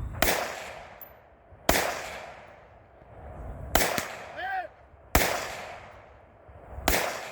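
Five gunshots spaced about a second and a half apart during a shooting match stage, each followed by a long echo that fades away.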